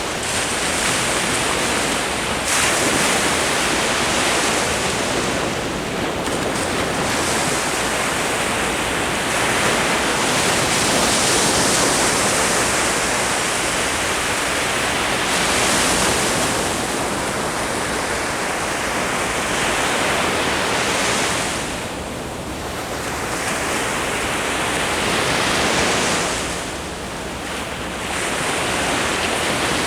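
Ocean surf breaking and washing up the shore: a continuous rush of water that swells and eases every few seconds, with brief lulls between waves.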